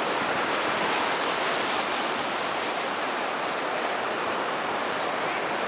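Shallow ocean surf washing in over the sand: a steady rushing hiss of foaming water.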